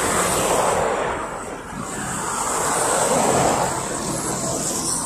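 PAZ 32054 bus's ZMZ-52450A engine, running on liquefied petroleum gas, pulling the bus away from a stop, with a steady low hum and road noise rising and falling.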